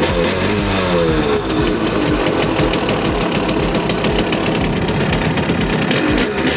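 Simson Schwalbe scooter's 50 cc single-cylinder two-stroke engine running, revved by hand on the throttle: the revs fall back in the first second or so, then it runs on steadily with a fast two-stroke beat.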